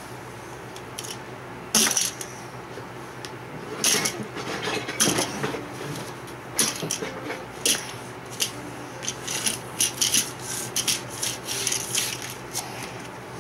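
Small plastic toy car and figure handled on a tabletop: irregular clicks, taps and light scraping, with a few sharper knocks about two, four and five seconds in.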